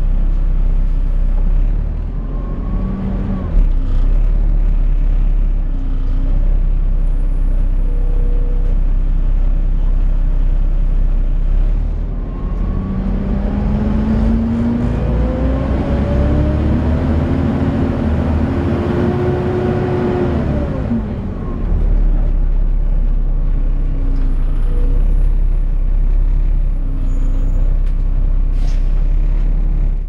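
Volvo B7TL bus heard from inside on the upper deck: the engine runs with a loud, vacuum-cleaner-like 'hoover' whine from its cooling fan. Midway through, the whine rises in pitch and swells, then falls away.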